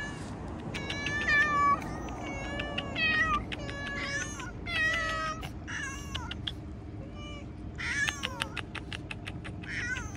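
Several stray cats meowing repeatedly, about seven calls in a row, some rising and falling in pitch. They are hungry cats begging for food.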